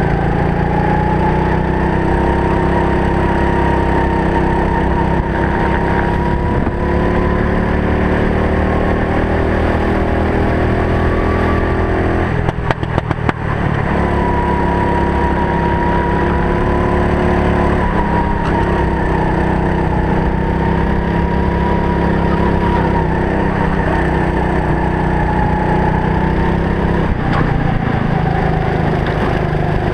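Racing kart engine heard from the driver's helmet camera, its note rising and falling with the throttle through the laps. About twelve seconds in it drops away briefly and splutters for a moment before pulling again.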